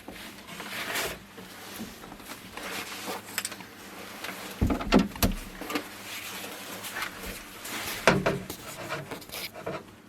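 Rustling, shuffling and a few soft knocks of people shifting position and handling gear in close quarters, the clearest bumps about halfway through and again near the end.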